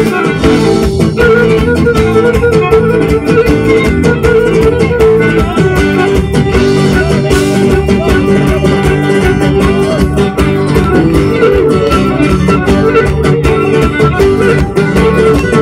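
Cretan folk dance music led by plucked string instruments, loud and continuous.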